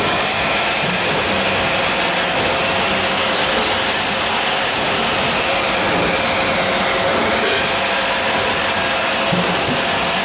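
Six-line plastic bag making machine running: a loud, steady mechanical rushing noise with a faint steady tone through it.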